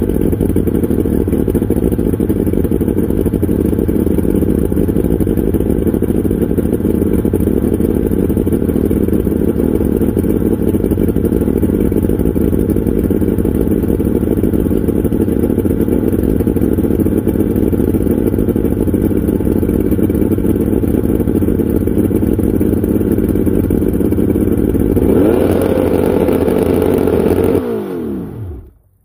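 Warmed-up carbureted two-stroke Mercury outboard with three carburetors running steadily, uncowled, while antifreeze is fed through its water jacket. About 25 seconds in the sound changes and grows louder in its upper range; then the engine is shut off and winds down in pitch to a stop shortly before the end.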